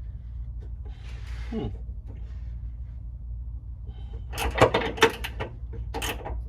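Hand tools working on a car's rear shock mounting bolts: a short scrape, then a quick cluster of irregular metal clicks and knocks about four seconds in, over a low steady hum.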